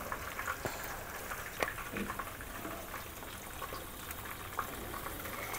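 Besan-battered fish pieces deep-frying in hot oil in a pan: a quiet, steady sizzle with scattered small pops and crackles.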